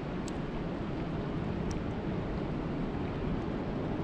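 Steady rain falling on water, a dense even hiss, with two sharper drop taps early and in the middle.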